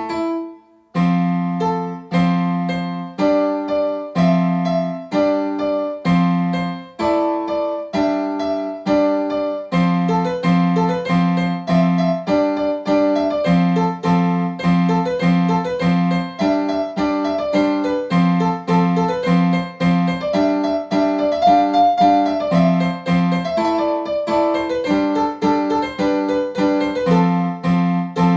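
Electronic keyboard playing a piano sound through an external speaker box: a steady run of repeated chords and melody notes, each struck note dying away, with a brief break about a second in.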